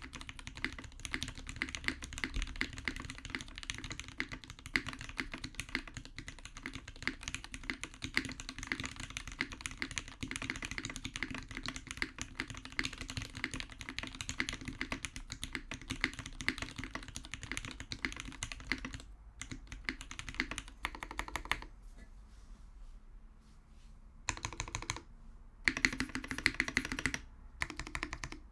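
Mechanical keyboard typing on a TGR 910 RE with a brass plate, lubed H1 switches with Milky Gateron tops and GMK keycaps. Fast, continuous keystrokes for most of the stretch, then short separate bursts of typing with a brief pause in between near the end.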